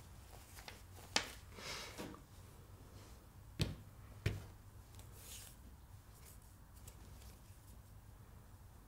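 Quiet handling sounds of fabric and a metal piping turner: soft rustling of cotton lawn fabric with a few light clicks and knocks, the two loudest about three and a half and four seconds in.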